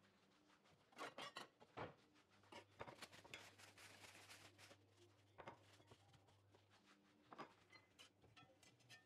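Near silence: a faint low hum with a few scattered soft clicks and light knocks.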